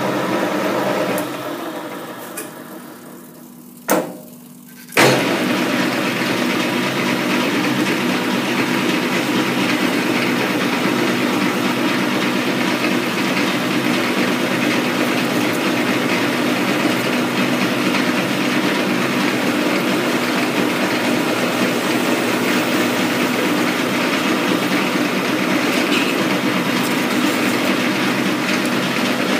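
Metal lathe running while it turns a radius on an R8 tooling shank under flood coolant. After a few sharp knocks in the first five seconds, it settles into a steady drone of gear hum with the hiss of cutting and coolant.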